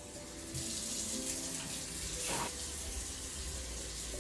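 Water running from a pull-down kitchen faucet into the sink, turned on about half a second in and flowing steadily.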